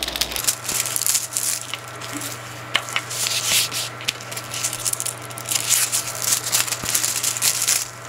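Hands rubbing and pressing the plastic film on a diamond painting canvas, with irregular crinkling and rustling as the canvas is shifted and turned on the table.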